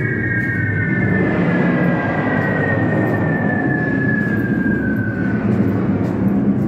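Played-back Blitz air-raid sound effects: a steady low drone of aircraft overhead, with a slowly descending whistle-like tone that fades out about five seconds in.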